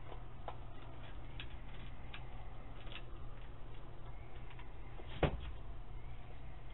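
A raccoon and a skunk eating dry food from a pan: scattered small clicks and crunches, with one louder knock about five seconds in, over a steady low hum.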